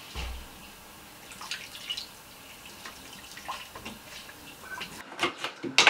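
Lemon halves squeezed by hand over a bucket of nettle-beer liquid, the juice dripping and trickling into it, with a soft thump just after the start.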